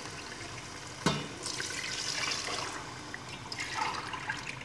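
Water poured from a steel tumbler into an aluminium cooking pot of masala, splashing in two pours. A sharp knock about a second in is the loudest sound.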